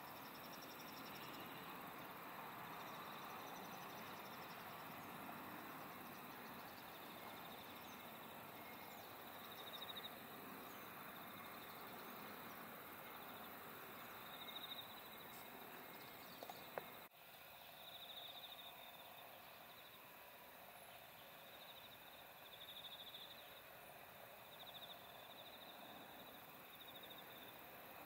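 Faint outdoor ambience: insects trilling in short, high-pitched spells over a steady soft hiss. A brief click comes about two-thirds of the way through, where the background sound changes abruptly.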